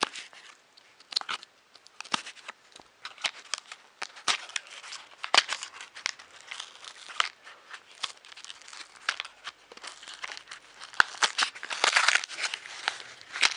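Plastic packaging crinkling and rustling as it is handled and opened, in many quick irregular crackles that are busiest near the end.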